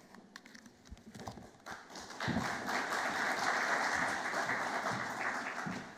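A small audience applauding. It builds to steady clapping about two seconds in and fades out near the end.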